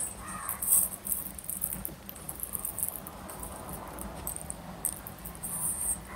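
Close-miked chewing of a mouthful of khichuri: wet smacking and many small, quick mouth clicks, while fingers gather rice on a steel plate.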